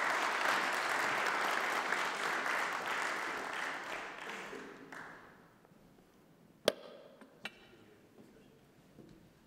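Audience applauding, dying away over about five seconds. Then two sharp knocks, under a second apart.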